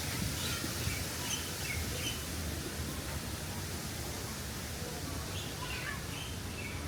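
Birds chirping: scattered short, high chirps, a cluster in the first couple of seconds and another from about five seconds in, over a steady background hiss.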